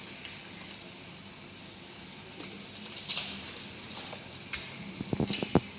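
Packaging being handled and rustled, with crinkling about three seconds in and a quick run of clicks and taps near the end.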